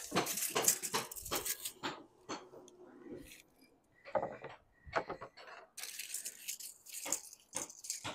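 Steel tape measure being handled, drawn out and run back in, giving irregular metallic rattles and clicks, thickest in the first couple of seconds and again near the end.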